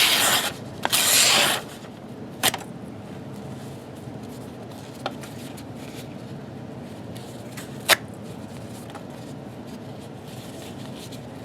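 ESEE Zancudo folding knife's blade slicing through material in a cut test: two loud, hissy cutting strokes in the first second and a half, then a few sharp clicks spread out after it.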